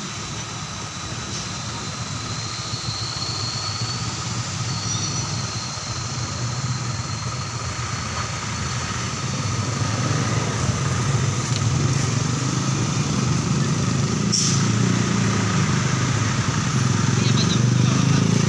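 Road traffic of trucks and cars passing slowly on a wet road: a steady low engine rumble with tyre hiss that grows louder toward the end as a heavy truck draws close. A single sharp click comes about two thirds of the way in.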